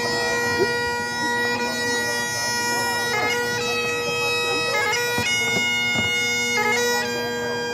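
Great Highland bagpipe playing a piobaireachd: steady drones under slow, long-held chanter notes, broken three times by quick grace-note flourishes.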